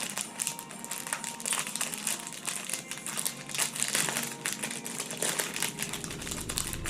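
Plastic packaging crinkling as it is handled and unwrapped: a dense, irregular run of small crackles.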